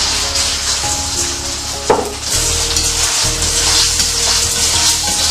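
Marinated chicken pieces sizzling in plenty of hot oil in a wok, a steady frying hiss, with one sharp knock about two seconds in.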